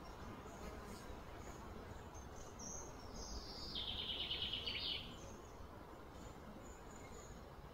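Quiet outdoor ambience with one high, fast-pulsed trilling call that falls in pitch, starting a little under three seconds in and lasting about two seconds.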